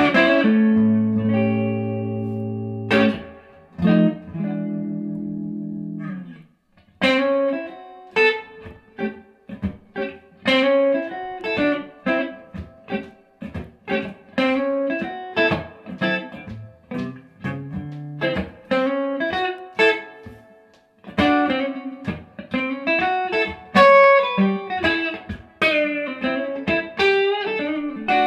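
1970 Gibson Les Paul Custom electric guitar played straight into a 1966 Fender Pro Reverb tube amp with no pedals. Two chords are left to ring over the first six seconds. After a brief pause comes a steady run of quickly picked single notes and short chords.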